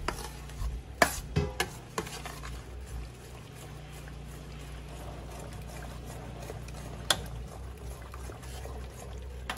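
Metal spoon stirring and mashing thick bean mash in a stainless steel pot, with a few sharp clinks of the spoon against the pot. A steady low hum runs underneath.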